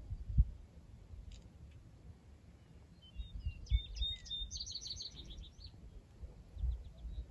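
A songbird sings one phrase: a few high chirps about three seconds in, running into a fast trill of repeated notes that stops just before six seconds. Wind gusts rumble on the microphone throughout.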